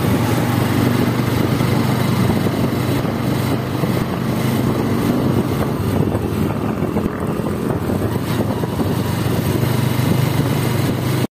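Small vehicle engine running steadily, heard from on board while riding through the streets, with road and wind noise. It cuts off abruptly near the end.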